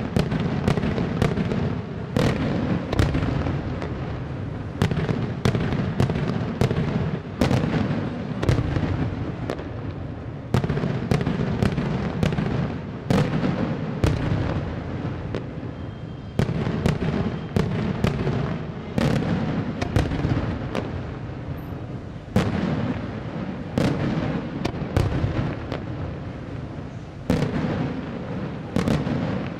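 Daytime fireworks display: aerial shells bursting with sharp bangs in quick, irregular succession, several a second at times, over a continuous low rumble.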